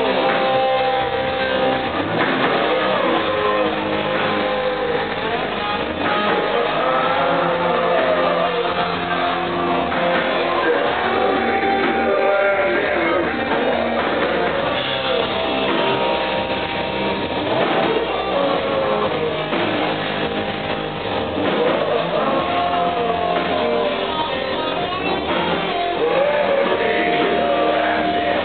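Live industrial rock band playing a song: drum kit, electric guitar and keyboards with lead vocals, loud and continuous.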